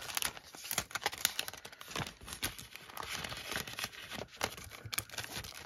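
Clear plastic packaging crinkling and rustling as it is handled, with many irregular sharp crackles.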